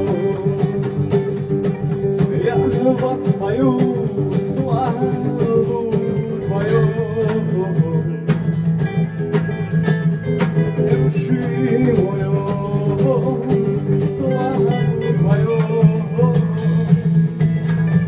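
A band performing a song: guitar with singing over steady sustained notes.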